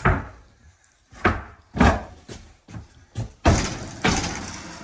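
Irregular thumps and knocks on a plywood subfloor laid over floor joists, about eight in all at roughly half-second spacing, like footsteps and work on the boards. The two loudest come past the middle, each dying away more slowly.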